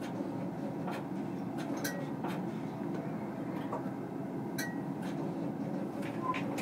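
Steady running noise inside the driver's cab of a London Underground S Stock train moving along the track, with scattered light clicks and rattles.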